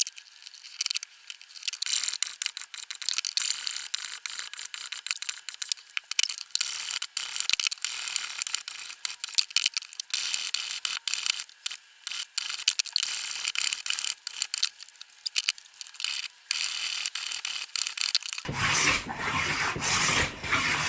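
Hand plane being pushed along pallet-wood boards, shaving the timber: a dense, high-pitched rasping scrape full of rapid clicks. Near the end the sound changes abruptly to a fuller, lower scraping.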